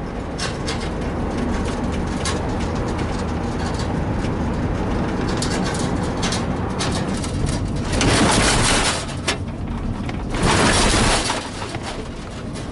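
A vehicle engine running steadily, with scattered knocks and two loud rushes of noise, about eight and ten and a half seconds in.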